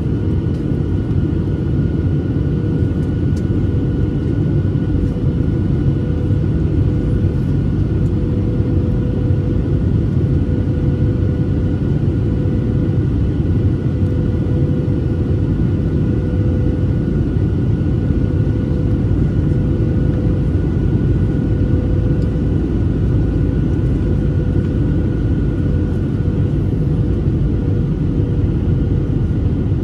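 Boeing 737-800 cabin noise in flight, heard from a window seat over the wing: a steady low rumble of airflow and CFM56-7B engines, with a constant hum on top.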